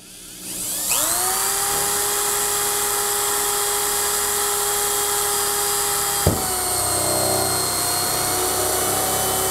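Power drill running in reverse with a 1.5-inch hole saw cutting through the wall of a food-grade plastic barrel. It is a steady motor whine that spins up over the first second. About six seconds in there is a sharp click, and after it the pitch dips a little and wavers as the saw cuts.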